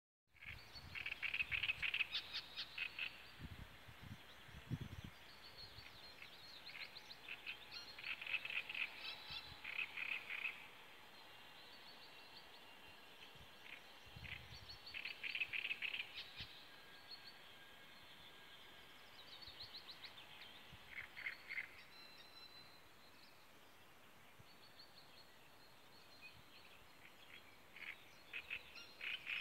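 Great reed warbler singing: phrases of rapid repeated notes, each one to three seconds long, with pauses of several seconds between, about five phrases in all.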